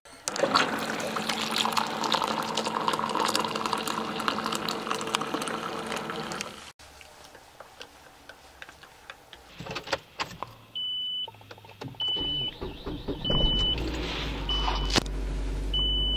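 Hot water pumped from an electric thermo pot streaming into a ceramic mug, then a spoon stirring. After a cut, a car's warning chime beeps five times, about once a second, while the engine starts and settles into a low, steady cold idle.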